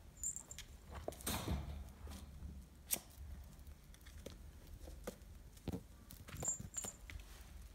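Russian Blue kittens playing: soft paw scuffles and rustling on plastic-backed floor pads, with scattered light taps. A longer rustling swish comes about a second and a half in, and a sharp tap comes near three seconds in.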